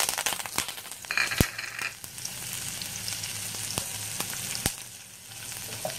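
Tempering (tadka) for kadhi: garlic, dried red chilli, curry leaves, cumin and cloves sizzling in hot oil in a kadhai, with sharp pops from mustard seeds bursting in the oil. A steady hiss, briefly louder about a second in.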